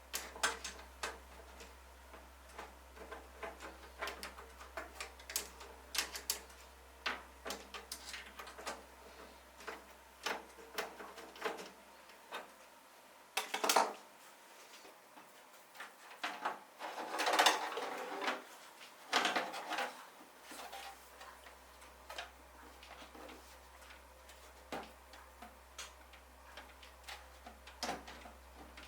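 Irregular small clicks, taps and light clatters of hard plastic and metal computer parts being handled during assembly, with a few louder clattering moments near the middle.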